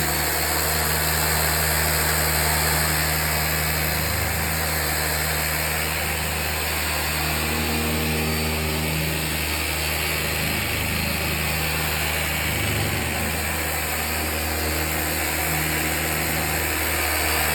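Hand-held electric sander running steadily, its pad rotating against the face of a poplar board to smooth out planer marks.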